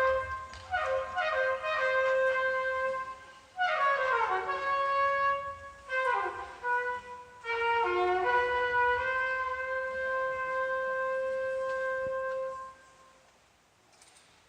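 Children's marching band brass, led by trumpets, playing short repeated phrases and two quick falling runs, then holding one long note that stops about thirteen seconds in.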